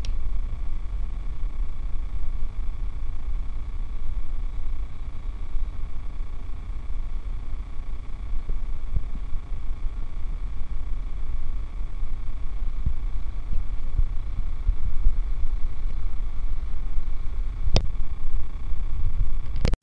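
Tractor engine running steadily under load while pulling a reversible mould-board plough through soil: a low, steady rumble. Two sharp clicks near the end.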